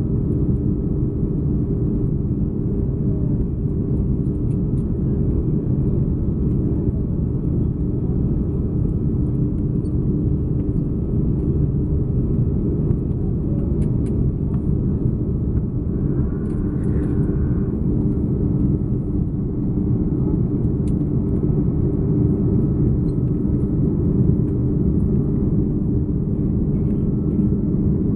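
Airbus A330-300 airliner's jet engines and airflow: a steady low rumble with a faint steady hum in it, holding even throughout.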